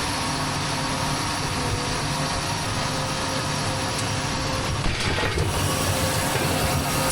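Tractor and round baler running steadily in the hayfield, a continuous mechanical clatter over the engine's drone, with a brief louder knock about five seconds in.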